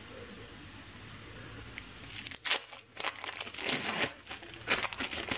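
Plastic wrapper of processed sandwich cheese slices crinkling in the hands as it is handled and opened, in a run of irregular crinkles starting about two seconds in.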